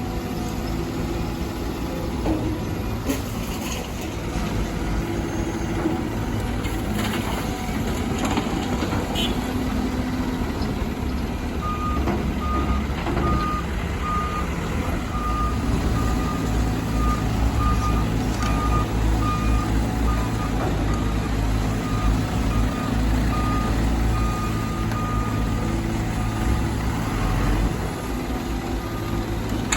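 Diesel engine of heavy earthmoving equipment running steadily. Its reversing alarm beeps about twice a second, starting about a third of the way in and stopping shortly before the end: the machine is backing up.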